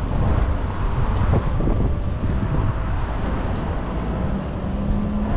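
City street traffic passing on the road, with wind rumbling on the microphone.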